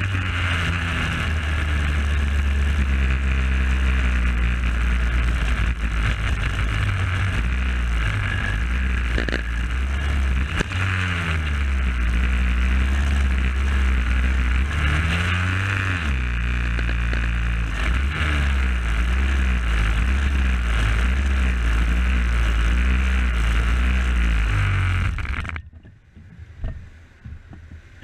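Superkart engine heard from on board while lapping, its pitch rising and falling repeatedly with throttle, over wind rush; the engine is being run in. Near the end the engine sound drops away abruptly.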